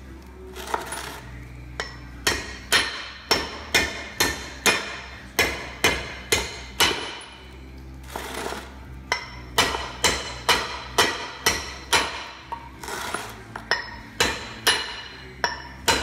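A hand hammer strikes steel wheel studs, driving them out of a Dodge W250's Dana 60 front hub and captured brake rotor. The blows are sharp and metallic, each ringing briefly, and come in runs of about two to three a second with pauses of a second or two between runs.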